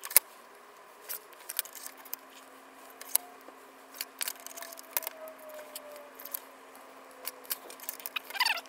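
Scissors cutting adhesive tape, with the tape roll handled between cuts: irregular sharp snips and clicks, the loudest right at the start.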